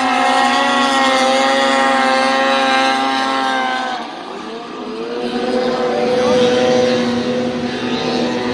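Racing snowmobile skimming across open water, its engine held at high, steady revs; about four seconds in the engine note drops away and falls in pitch, then a high engine note rises back in.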